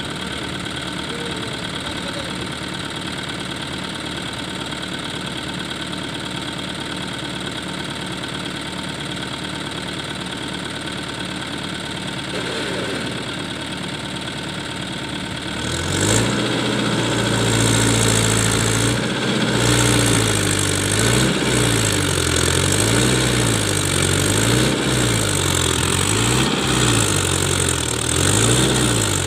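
Tractor diesel engine running steadily; about sixteen seconds in it gets louder and its revs rise and fall over and over.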